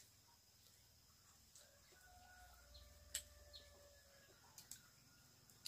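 A rooster crowing faintly: one long drawn-out call, with a single sharp click partway through.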